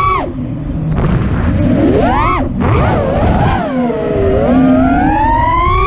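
FPV quadcopter's Stout brushless motors and Ethix propellers whining, the pitch swooping up and down sharply with the throttle and cutting out briefly twice, over wind rush on the onboard camera's microphone.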